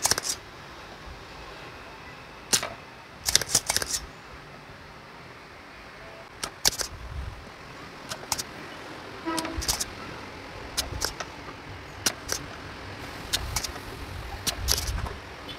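Spring-loaded solder sucker (desoldering pump) being cocked and fired again and again: a dozen or so sharp clicks and snaps at uneven intervals, some in quick clusters, as the old solder is sucked off the pins of a TDA2050 amplifier IC to free it from the board.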